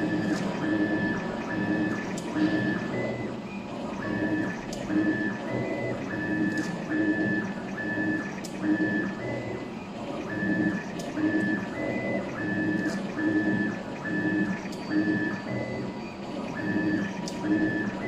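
Automatic wire stripping machine running through its cycle, its feed-roller motors whining in short, even pulses about twice a second, with sharp clicks about once a second.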